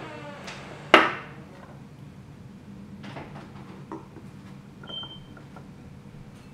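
Ceramic plates and a cut-glass candle holder clinking together: one sharp ringing clink about a second in, then a few lighter knocks and a brief ring near five seconds in.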